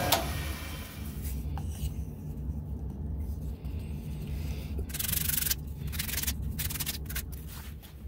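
Hands rubbing and handling small turned wooden parts, with a few short bursts of rubbing noise about five to seven seconds in, over a low steady rumble.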